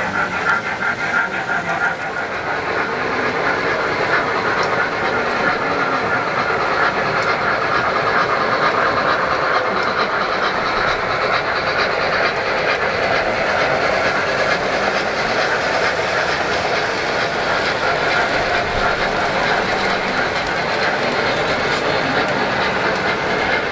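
O-scale model train running on the layout: a steady whir of the locomotive's motor and rolling wheels, with the faint clicking of wheels over the track joints.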